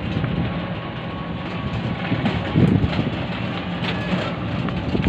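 Three-wheeler tempo's engine running while it drives along a rough dirt track, its body rattling, with a louder jolt about halfway through.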